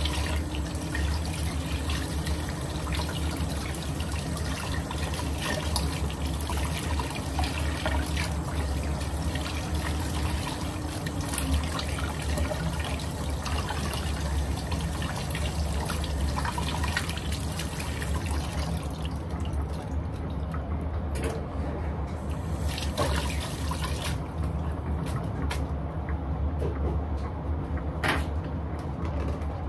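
Kitchen tap running into a sink, a steady splashing hiss that stops about 19 seconds in, followed by scattered clicks and knocks of kitchen work. A steady low hum runs underneath throughout.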